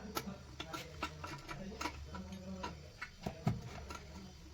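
Irregular light clicks and taps, with a louder knock about three and a half seconds in, typical of hand work on a fixture; faint voices in the background.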